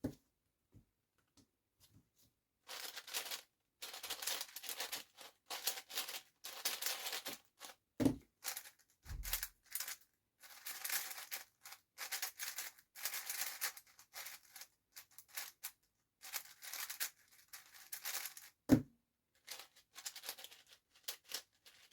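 Plastic speedcube being turned by hand in quick bursts of layer moves, a dry clattering rattle of the pieces sliding and snapping into place, broken by a few low thuds.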